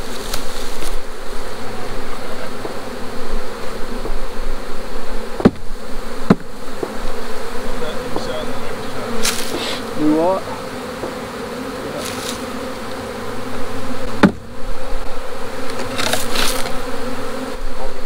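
Honeybees buzzing steadily in a crowd around a hive that a bear has torn open, one passing close with a wavering pitch about ten seconds in. A few sharp knocks of wooden hive boxes and frames being handled: two in quick succession about a third of the way in, and one more later.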